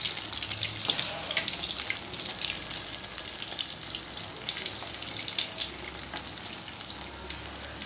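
Grated potato pieces deep-frying in oil in a metal kadai over high heat: a steady crackling sizzle made of many small, quick pops.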